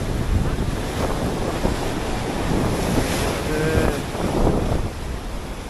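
Sea surf washing on the beach, with strong wind buffeting the microphone in a low rumble; a wave's hiss swells about three seconds in.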